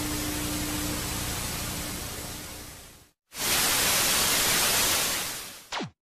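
Old television static sound effect: a steady hiss with a low hum that fades out about three seconds in. After a short gap comes a louder burst of static, which ends in a quick falling whine as the picture tube switches off.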